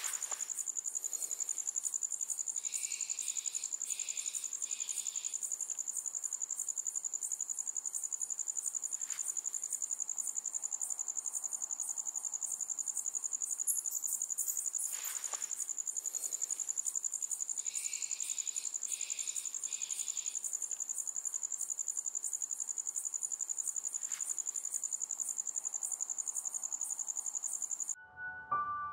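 Crickets chirping at night in a steady, high-pitched trill of rapid pulses. A second, lower insect call comes in three short bursts, twice. The chorus cuts off suddenly near the end.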